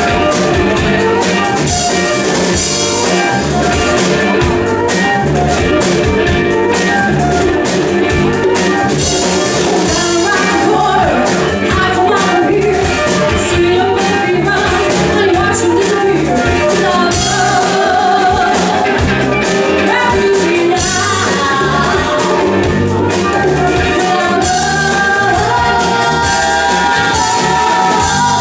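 Live Latin funk band playing with congas, drum kit, guitar and flute, with a woman singing lead over a steady beat.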